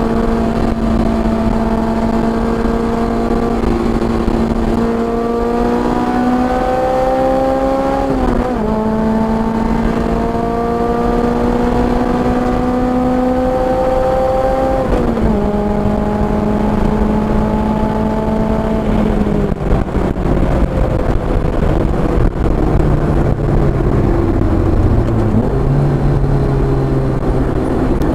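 Car engine pulling with its pitch climbing slowly, dropping sharply at two upshifts about 8 and 15 seconds in, then falling to a low, lighter note after about 19 seconds as the car slows. Steady wind and road noise run underneath.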